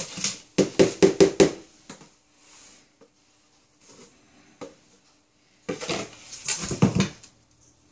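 Wooden spoon knocking and scraping against a stainless steel mixing bowl as sticky dough is stirred and flour worked in. A quick run of sharp knocks opens it, a few faint taps follow, and another cluster of clatter comes about three-quarters of the way through.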